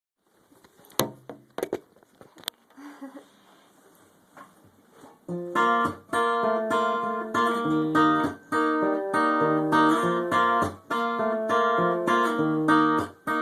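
A few short knocks, then about five seconds in an acoustic guitar starts playing a repeating chord pattern in a steady rhythm.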